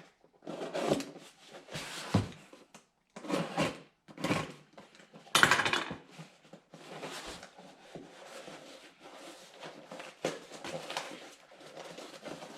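Cardboard shipping box being opened and its packing material handled: a run of uneven scraping and tearing rustles, the loudest about halfway through, then a softer steady crackle of packing stuff being rummaged.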